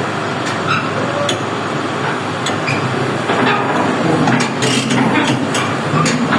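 Crawler excavator's diesel engine running steadily, with scattered metallic clinks and clanks from its steel tracks and undercarriage as it moves.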